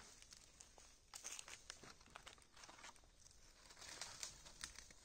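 Near silence, with faint scattered crackles and ticks.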